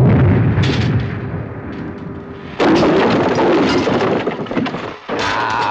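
Loud crashing and clattering sound effects in two long bursts, the second starting about two and a half seconds in, with a shorter one near the end. This is the lab being torn apart by a powerful electromagnet, which wrenches out every screw and nail.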